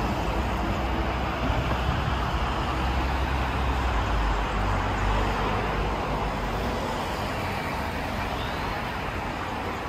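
Street traffic with a steady low rumble from a city bus and cars driving past. It eases off slightly in the second half.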